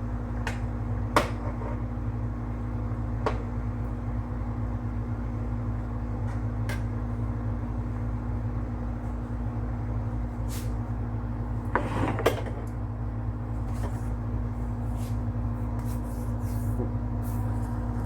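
A few sharp knocks of a spoon against a cooking pot during stirring, with a cluster of them about twelve seconds in, over a steady low hum.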